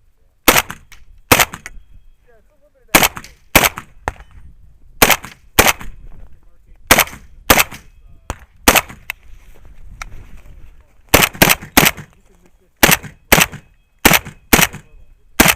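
Rifle shots fired in quick pairs, about half a second apart, roughly twenty sharp cracks in all, with short gaps between pairs as the shooter works through the targets.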